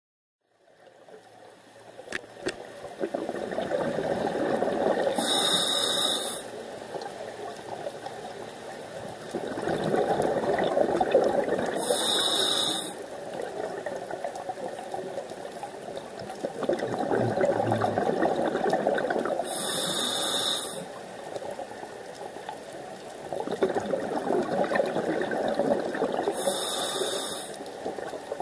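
Scuba diver breathing underwater through a regulator: four slow breath cycles, each a few seconds of rushing exhaled bubbles together with a short high hiss of the regulator.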